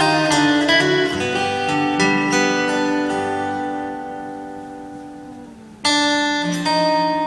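Solo acoustic guitar played fingerstyle: picked melody notes, then a chord left ringing that slowly fades over several seconds, before a sudden full chord about six seconds in starts the playing again.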